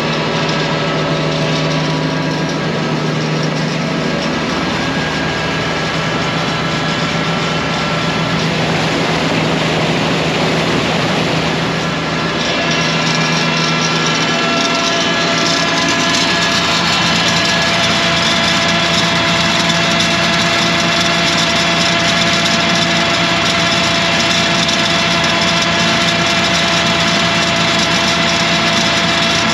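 Tractor engine running steadily under load while slurry is pumped through a hose into a tanker, its tone shifting a little about twelve seconds in.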